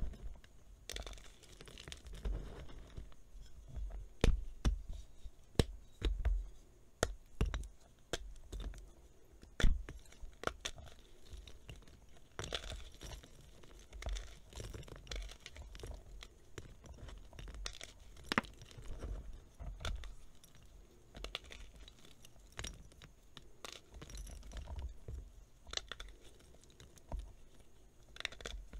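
Hands crumbling and snapping slabs of dried reformed gym chalk: irregular crunching with scattered sharp snaps as the hard pieces break, the loudest about four and ten seconds in.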